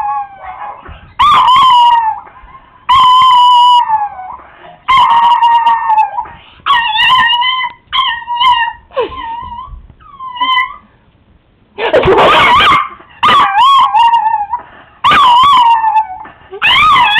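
Chihuahua howling in excitement: a string of loud, yowling howls, each about a second long and sliding down in pitch at the end, with a run of shorter, choppier yowls in the middle.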